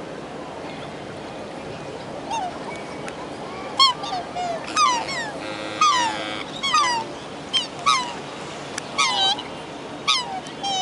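Black swans calling: a run of short, high bugling notes, each a quick glide in pitch, starting faintly about two seconds in and coming thick and fast, often overlapping, from about four seconds on.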